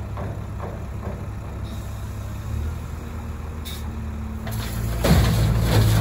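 JCB backhoe loader's diesel engine running under digging load, growing louder about four and a half seconds in as the loaded boom is raised. A knock about five seconds in, then a rush of noise near the end as sand is tipped from the bucket into the lorry's steel body.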